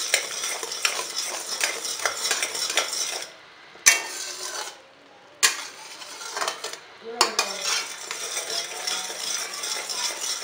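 A steel spoon scrapes and clinks against a kadhai as boiling jaggery syrup is stirred, with the syrup bubbling as it thickens. The stirring stops for about two seconds a little after three seconds in, then starts again.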